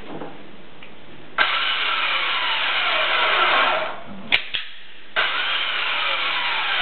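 Mine shaft winch running in two bursts of about two and a half seconds each, with a sharp click in the short pause between them.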